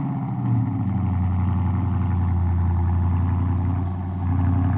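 Dodge Charger Scat Pack's 392 HEMI V8 idling steadily just after being started, through Carven aftermarket mufflers and exhaust tips, with a slight dip in level about four seconds in.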